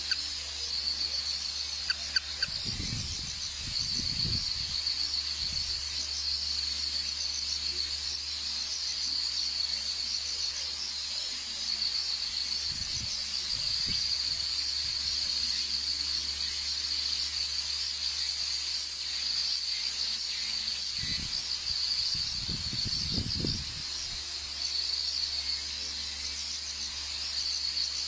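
Steady high-pitched chirring of insects, with a few low rumbles about three seconds in, near the middle and again later.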